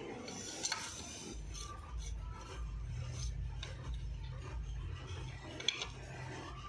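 Socket wrench on an extension bar turning the bolts of a cover plate on a Mahindra 265 DI tractor engine block: irregular metallic clicking and scraping, with two sharper clicks, about a second in and near the end.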